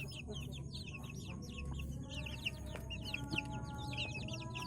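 A flock of young chickens peeping: many overlapping high, short chirps that fall in pitch, several a second.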